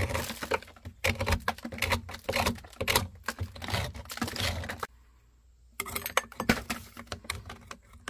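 A screwdriver scraping and picking at wet clay-like sediment packed in a geothermal flow center's pump housing: a fast, irregular run of scrapes and clicks, with a short pause about five seconds in. The sediment has come in from the ground loop and is taken as the reason the pump failed.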